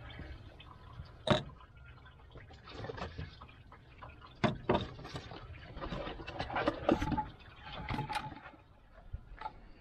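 Coolant draining and dripping out of a GM Ecotec engine's open water outlet port after the housing has come off, broken by several sharp clicks and knocks, the loudest about a second in.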